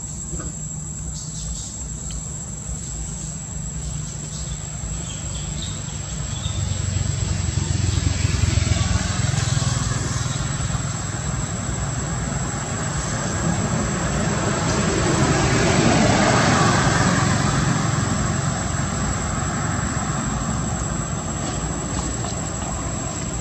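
Outdoor background of a steady, high insect drone, with a rumble of passing vehicles that swells and fades twice, about a third of the way in and again just past the middle.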